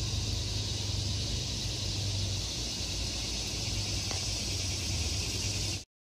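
Steady outdoor background noise: an even hiss with a low hum under it, which cuts off to silence near the end.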